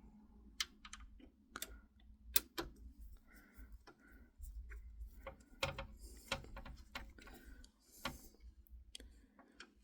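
Light, irregular clicks and taps of small metal parts being handled while the graphics card's rear bracket is fitted and screwed into a PC case.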